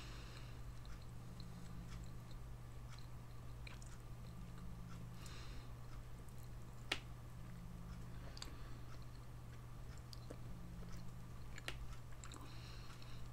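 Quiet eating sounds from an open tin of canned sardines: faint clicks of a fork on the tin and soft wet squishes, with one sharper click about seven seconds in, over a steady low hum.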